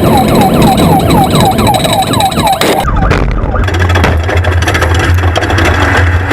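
Loud off-road race-truck noise with a siren-like falling chirp repeating about four times a second. About three seconds in it cuts off abruptly and music with a heavy, steady bass begins.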